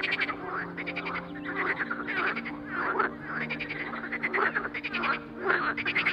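European water frog calling, a series of pulsed croaks repeated roughly twice a second, each made of fast clicking pulses.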